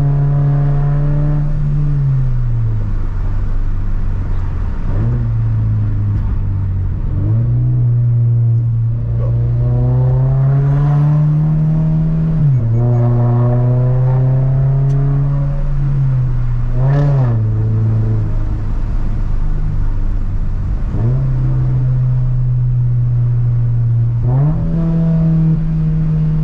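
Toyota GR86/Subaru BRZ flat-four engine through an aftermarket sports exhaust, heard from inside the cabin while driving. The note climbs under throttle and drops sharply at each gear change, several times, with a sharp pop at one shift about two-thirds of the way through.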